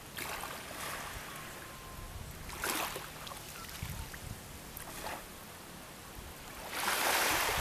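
Shallow seawater swishing and splashing in a few short washes over a steady hiss, the longest and loudest near the end.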